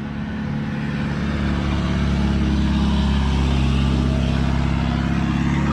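A motor vehicle's engine running steadily, slowly growing a little louder before levelling off.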